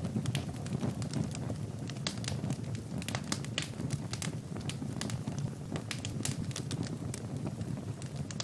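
Wood fire burning in a fireplace: a steady low rush of flames with frequent sharp crackles and pops, several a second.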